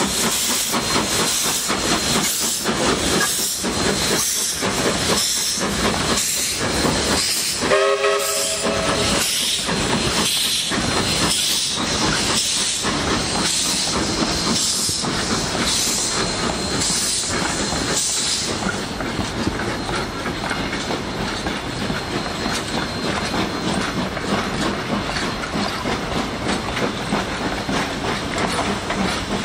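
AC16 steam locomotive working past with a steady beat of exhaust chuffs, a little over one a second, and a short blast on its steam whistle about 8 seconds in. After about 18 seconds the chuffs fade and the passing carriages take over with a rolling clickety-clack on the rails.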